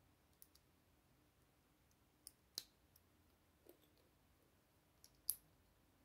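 Plastic Lego bricks clicking as they are handled and pressed together: a handful of short, sharp clicks over a quiet background, the loudest about two and a half seconds in and another near the end.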